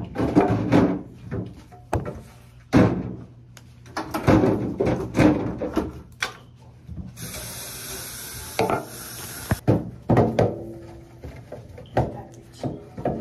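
Refrigerator shelves, door bins and jars being handled and wiped during cleaning: scattered knocks, rattles and rubbing, with a steady hiss lasting about two seconds in the middle.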